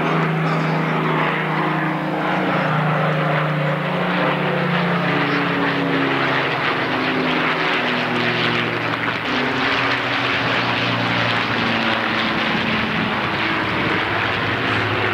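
Avro Lancaster bomber's four Rolls-Royce Merlin piston engines droning in flight, joined by escorting single-engine propeller planes. It is a loud, steady propeller drone of several tones whose pitch slowly wavers as the formation passes.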